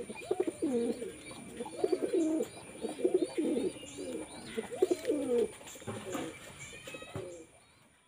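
Domestic pigeons cooing in repeated short, wavering phrases about once a second, with faint higher chirps above. The cooing fades out near the end.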